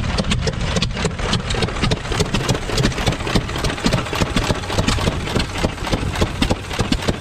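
Several antique flywheel stationary gas engines ('putt-putt' engines) running together, their exhausts popping in a quick, irregular stream over a low rumble.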